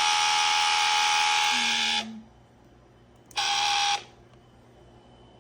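Small water pump of a tabletop fountain buzzing loudly with a steady whine. It cuts out about two seconds in, then buzzes again for about half a second. It is not yet primed and is short of water.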